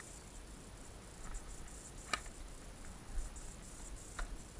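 Crickets chirping in a steady, high-pitched pulsing chorus, with two short sharp sounds about two and four seconds in.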